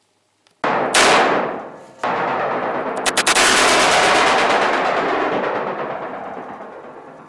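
Bruni NEW380 blank revolver firing 9 mm R Knall S&B blanks: loud shots just under a second in and at about two seconds, then a few quick sharp cracks around three seconds, all trailing into a long echoing tail that slowly fades.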